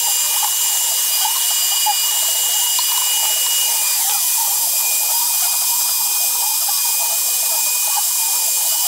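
CNC router spindle running at a steady high-pitched whine as its small bit carves a pocket in a hardwood board. One high tone in the whine drops away with a falling pitch about four seconds in.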